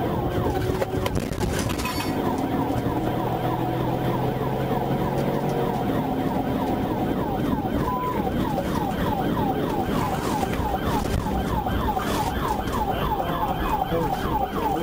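Police car siren heard from inside the pursuing cruiser over its engine and road noise, switching about halfway through to a fast yelp of about three or four sweeps a second.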